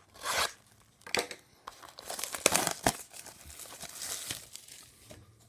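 Plastic wrapping on a sealed box of hockey trading cards being torn open and crinkled, with irregular rustling and a few sharp crackles, busiest in the middle.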